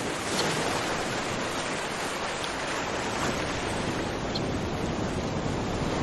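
Steady, even rushing noise, like surf or heavy rain, with a few faint short high chirps about every two seconds.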